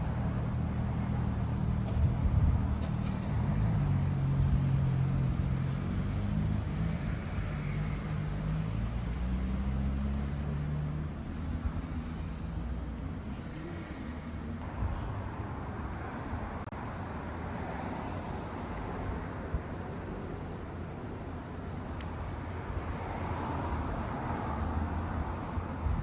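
Subaru EJ20 turbocharged flat-four engine running, its low hum shifting in pitch a few times in the first ten seconds or so, then settling into a steadier, fainter rumble.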